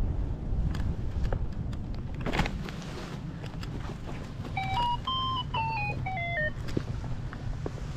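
Wind rumbling on the microphone. About five seconds in, an electronic device plays a short run of pitched beeps that rise a little and then step down in pitch.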